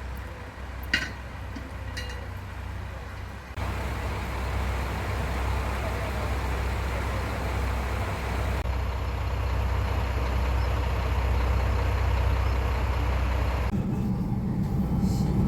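A vehicle in motion, a steady low rumble with running noise over it. There are two short clicks early on, and the sound jumps abruptly to a louder, fuller rumble about three and a half seconds in, then changes again near the end.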